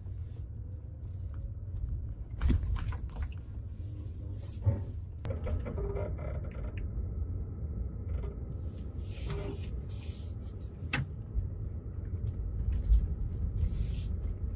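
Tires rolling through about six inches of snow on a Ford F-150 Lightning electric pickup, heard from inside the cab as a steady low rumble with no engine note. Scattered knocks and short hissy crunches come through now and then.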